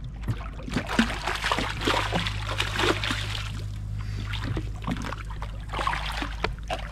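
A hooked fish thrashing and splashing at the water's surface beside the boat, a run of irregular splashes over a steady low hum.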